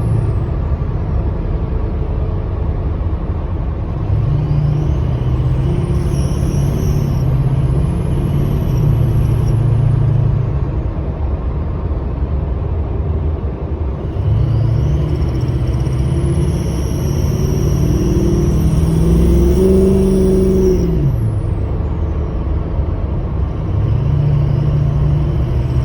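Ford 6.0 Powerstroke V8 turbo-diesel pulling under load three times, its note rising with each pull and dropping back between them. A high, thin squeal climbs in pitch with each pull and falls away as it ends. The owner has a new ticking squeal that comes only under load with the engine warm, and its cause is not yet found.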